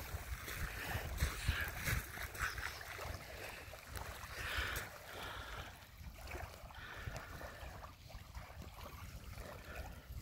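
Small waves lapping and washing over a pebble shoreline, with wind buffeting the microphone in the first few seconds.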